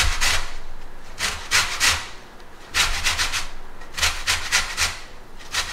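Orange peel being zested on a metal box grater: quick rasping scrapes in short runs of several strokes, with brief pauses between runs.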